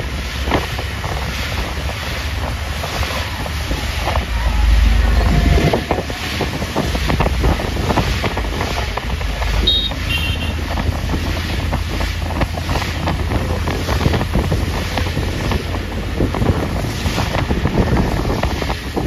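Wind buffeting the microphone, with road noise, from a moving vehicle; the low rumble swells about four to six seconds in. A short high tone sounds about ten seconds in.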